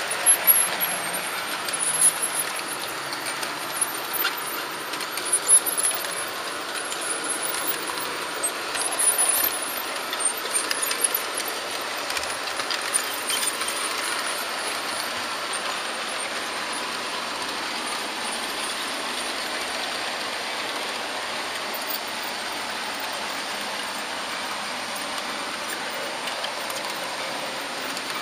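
An HO-scale Märklin model train running along its track, heard from the train itself: a steady whir of wheels and motor on the rails, with scattered crackles and clicks through the first ten seconds or so, then running evenly.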